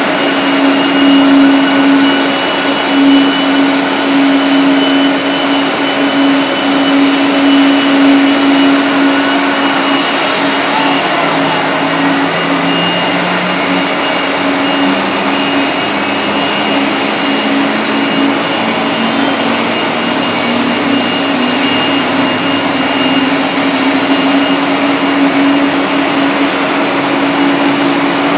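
Boeing 747-400D jet airliner's engines running with a steady whine and high whistle during pushback. About halfway through, a lower hum rises in pitch and then levels off.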